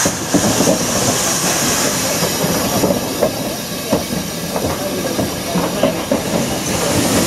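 Robert Stephenson & Hawthorns 0-6-0 saddle tank steam locomotive drawing a carriage slowly past, steam hissing from its open cylinder drain cocks. The carriage's wheels clank and knock irregularly over the rail joints as it rolls by.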